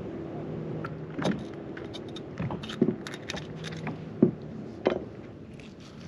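Kitchen knife cutting and knocking on a wooden cutting board while small mackerel are gutted: a string of sharp separate clicks and taps.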